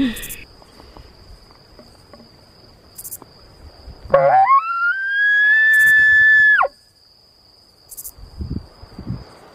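Elk bugle: a short low note sliding up into a loud high whistle, held for about two seconds, then cut off. It begins about four seconds in, over a steady insect trill.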